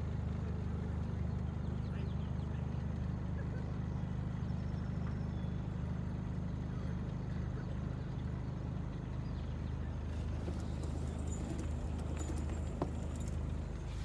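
A boat's inboard engine running steadily at low speed, a low even hum with a rhythmic beat. A single sharp click comes near the end.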